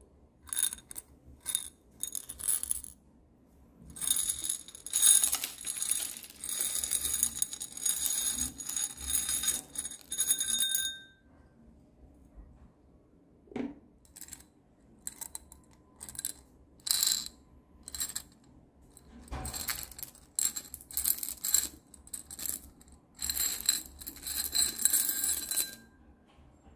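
Plastic rhinestones, sequins and beads poured from a clear plastic cup, clattering and tinkling against each other in two long rattling showers, with scattered single clicks between them.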